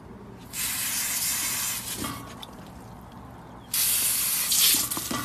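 Water spraying from a garden-hose spray nozzle in two bursts, each about a second and a half long, the second one louder.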